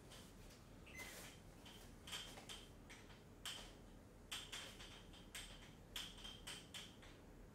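Near silence: quiet room tone broken by about a dozen faint, short clicks and taps, some with a brief high ring.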